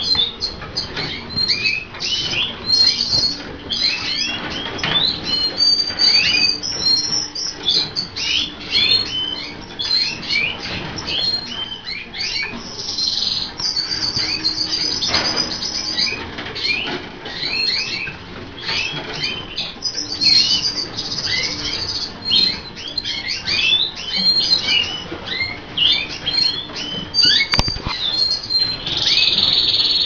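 Dense chatter of caged colour canaries and zebra finches: many short, overlapping chirps and calls with no pause. A single sharp click comes near the end.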